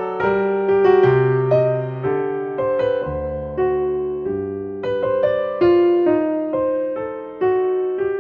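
Background music played on piano or electric piano: a gentle melody of struck notes and chords that ring and fade.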